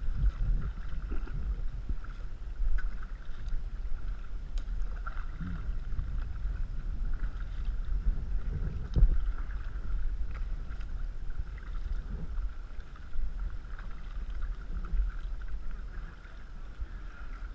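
Canoe being paddled: water sloshing around the paddle and hull with occasional knocks, over a low wind rumble on the microphone.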